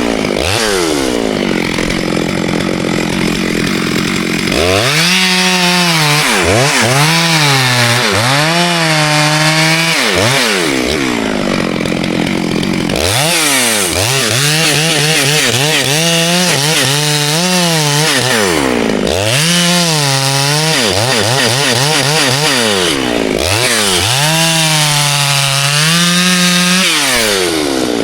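Two-stroke chainsaw cutting ash wood. The engine revs up and drops back again and again, its pitch swinging up and down about once a second as the cut loads it, with a few spells of lower, rougher running between bursts.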